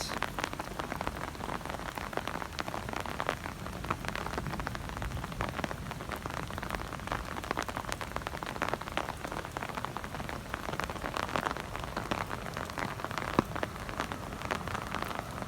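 Steady rain from a thunderstorm, a dense patter of many separate drops hitting a surface close by, with one sharper tap about thirteen seconds in.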